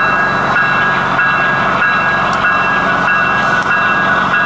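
HO scale model of an SD70M-2 diesel locomotive running: a steady, unbroken hiss with a high, even whine and a low hum underneath.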